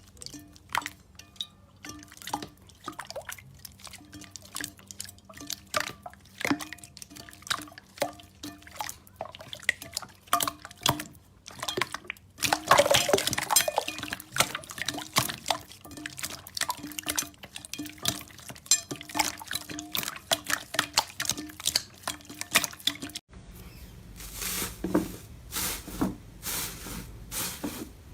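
Wet slime being squeezed and poked, making dense, irregular sticky clicks and pops. The sound changes abruptly near the end to a different, hissier texture.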